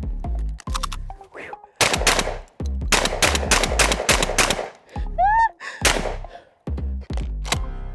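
Shotgun fired in quick strings of several shots, broken by short pauses between strings, as shells are loaded and fired at speed. Music plays underneath.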